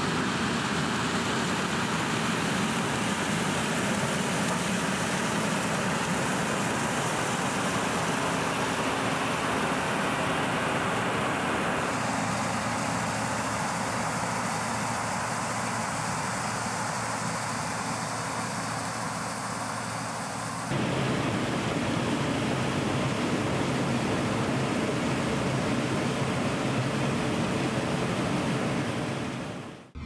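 New Holland TR86 combine running while harvesting corn: steady engine and machinery noise that changes abruptly about 12 and 21 seconds in, then fades out at the end.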